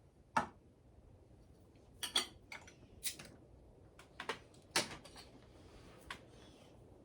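A beer bottle and glass being handled: a series of about seven sharp clicks, knocks and clinks spread over several seconds, with quiet between them.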